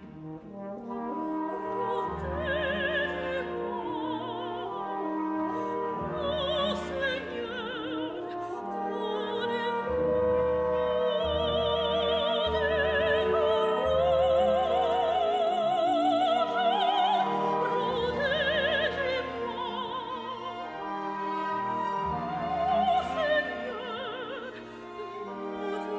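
Operatic soprano singing an aria with wide vibrato over an orchestral accompaniment of held low bass notes. The singing swells louder through the middle.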